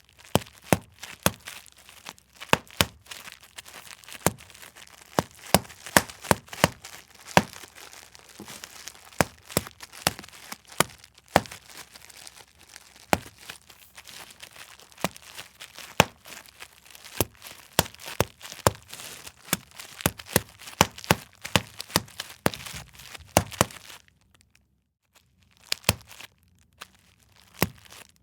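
Large-bubble packaging bubble wrap being popped by hand: a rapid, irregular run of sharp pops with plastic crinkling between them. There is a pause of about two seconds near the end before a few more pops.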